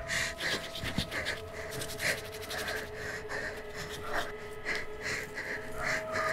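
A person panting in quick, uneven breaths, two or three a second, with a faint low held tone underneath.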